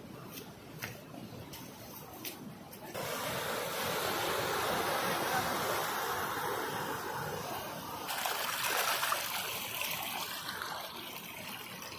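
Rushing water, a steady rush. It is quieter with a few faint clicks at first, jumps suddenly louder and fuller about three seconds in, and turns brighter again from about eight seconds.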